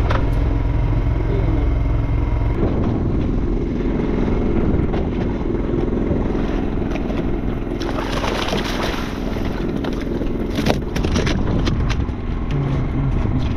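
A boat's engine running steadily under everything, a low hum. A brief rushing noise comes about eight seconds in, and a few sharp knocks follow near eleven seconds.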